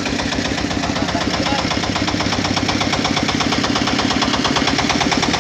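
Motorcycle engine idling, its exhaust firing in a steady, rapid, even pulse.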